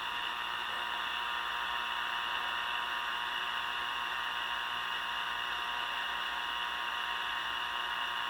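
Steady static hiss from a Tecsun 2P3 AM radio kit's speaker, tuned between stations, with faint steady whine tones underneath.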